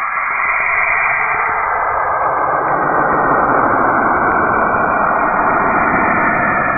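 Space sonification presented as the sound of Saturn: converted radio/magnetic-field emissions heard as a steady, loud rushing noise that deepens over the first couple of seconds.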